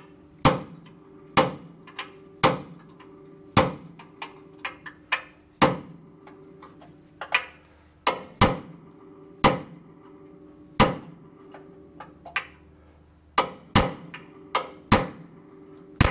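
Hammer blows on steel, about one a second with a short pause near the end, each followed by a brief metallic ring: the top crossmember-to-frame rivet on a 1957 Chevrolet Bel Air frame being hammered out.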